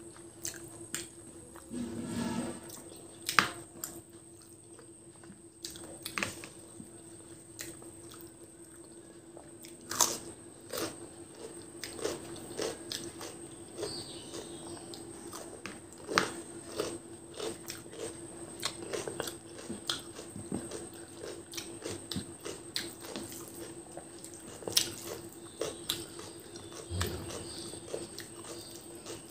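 Close-miked eating sounds of a person eating rice and chicken curry by hand. Irregular wet chewing, smacking and mouth clicks are mixed with the squish of fingers working rice and gravy on the plate.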